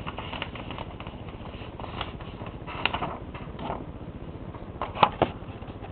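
A sheet of paper being folded and creased by hand: a few short, crisp crinkles and taps, the loudest about five seconds in.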